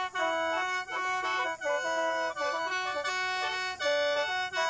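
Khaen, the Lao bamboo free-reed mouth organ, playing a quick melody over a steady held drone, several notes sounding together.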